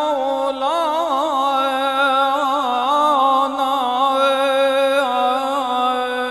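A male muezzin chanting the Shia call to prayer (adhan) solo. He holds one long, unbroken phrase, the voice wavering in melismatic turns and ornaments.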